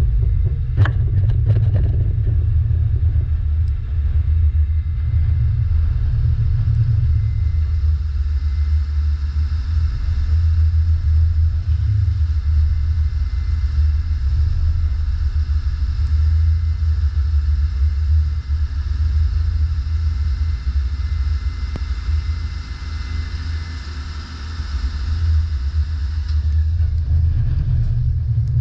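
DAF LF55 tipper truck's diesel engine running steadily at idle while the hydraulic tipping body is lowered, with a few knocks in the first couple of seconds. A fainter higher hiss over the engine's rumble cuts off near the end as the body comes to rest on the chassis.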